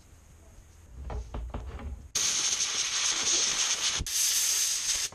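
Aerosol cleaner spray hissing out of a can onto a gunky spring in two bursts, a long one of about two seconds and a shorter one after a brief break, following a short rustle of the shop rag.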